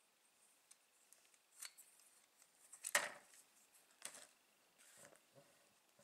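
Plastic building-brick model being handled: scattered light clicks and rattles of the plastic pieces, with one louder click about three seconds in and another about a second later.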